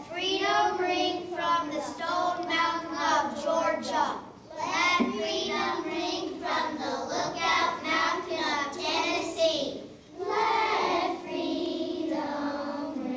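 A group of young children singing a song together, in sung phrases with brief pauses about four and ten seconds in.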